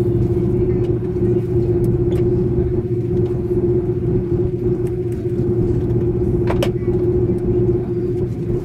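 Airbus A330 airliner's jet engines running, heard inside the passenger cabin as a steady low rumble with a constant hum on top. A brief click comes about six and a half seconds in.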